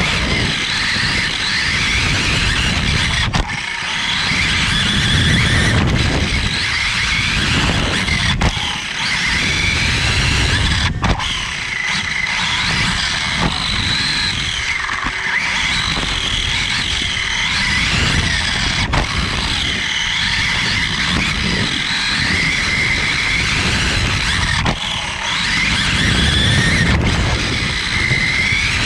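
Onboard sound of a 1/10 scale electric 4WD RC buggy racing on a dirt track. The motor and drivetrain whine rises and falls with the throttle over a rough rumble from the tyres and chassis on the dirt.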